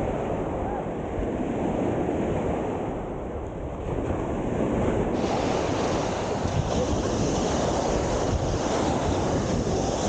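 Ocean surf breaking and washing up the beach, with wind buffeting the microphone; the wash of the waves grows brighter and a little louder about halfway through.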